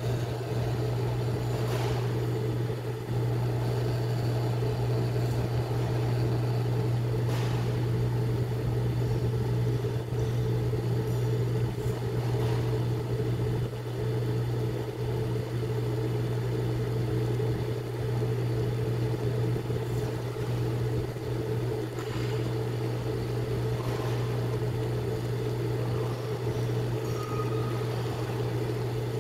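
Automatic instant-ramen cooker (HAUSCOOK FCH-D220) running mid-cycle as it cooks the noodles: a steady low hum over a faint even hiss, with a few faint ticks.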